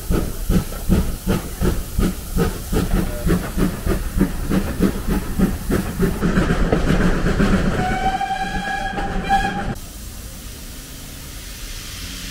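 Steam locomotive hauling a train, its exhaust chuffing at about four beats a second and blurring into a steady hiss. About eight seconds in, the whistle is blown for about two seconds, and then the sound cuts abruptly to a quieter steady rumble inside the carriage.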